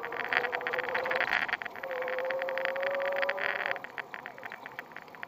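Electric bicycle's 250 W hub motor whining under power, the whine rising slightly in pitch, over a dense rattle. The whine and most of the rattle cut out almost four seconds in, leaving a lighter rattle.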